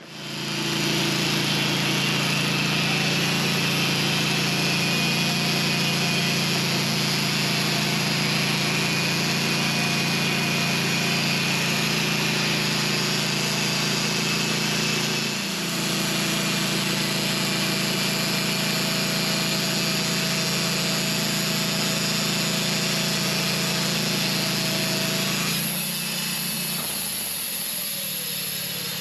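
Engine-driven bandsaw sawmill cutting through a pin oak log: a steady engine hum under the hiss of the blade in the wood. There is a brief dip about halfway, and the sound turns slightly quieter near the end.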